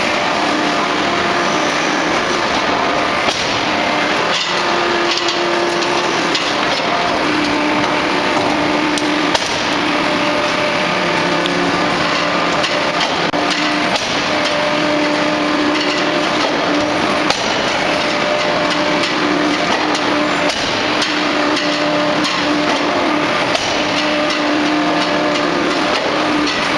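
800-ton hot forging hydraulic press at work: loud, steady industrial noise with a low hum that comes and goes in stretches of a second or two, and a few sharp metallic knocks.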